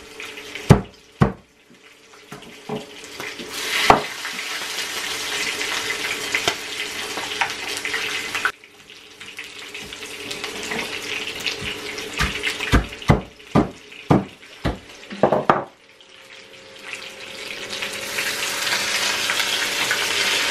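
Poultry pieces frying in oil in a pan, sizzling in two long stretches that build up and then cut off. Between them come sharp single knocks of a pestle pounding in a mortar.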